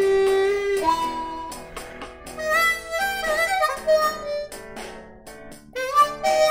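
Blues harmonica played with cupped hands: a long held note to start, then a run of shorter notes with some bent pitches, a brief lull, and more notes near the end.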